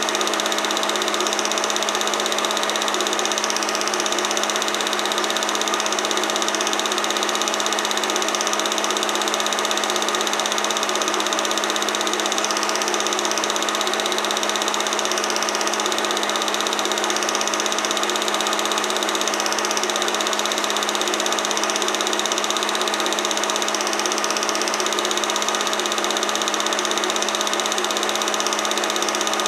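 Film projector running with a steady motor hum and mechanical whirr that does not change.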